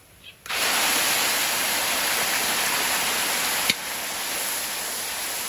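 Chopped garlic and chili paste sizzling in hot oil in a large wok: a loud, steady hiss that starts suddenly about half a second in. Just before four seconds there is a click, and the sizzle goes on slightly quieter.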